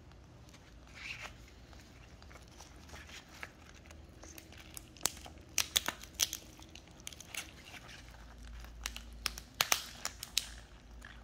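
Shell of a roe-filled female swimming crab being pried apart by gloved hands: an irregular run of sharp cracks, snaps and crackles, thickest from about five seconds in.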